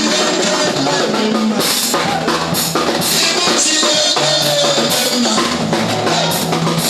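Background music with a driving drum kit: bass drum and snare hits over held notes.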